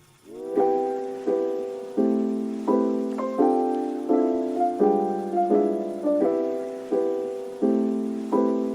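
Background music: mellow piano chords struck at a steady pace, a new chord about every 0.7 seconds, each ringing and fading until the next.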